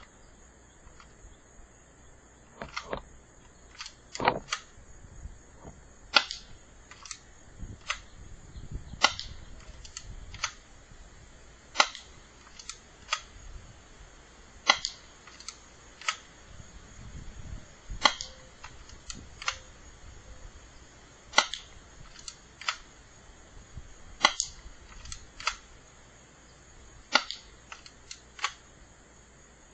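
UK Arms 8926 single-action airsoft pistol firing shot after shot: sharp snaps every second or two, some in quick pairs, with fainter clicks between them.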